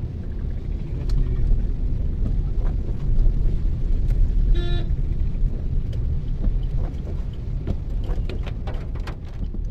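Steady low rumble of a car driving on a wet road, heard from inside the cabin, with a short horn beep about halfway through.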